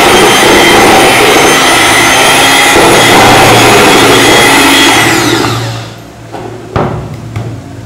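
Hand-held electric mixer running at speed, its beaters churning flour into butter cake batter in a steel bowl. About five seconds in it is switched off and its whine falls away, followed by a sharp knock.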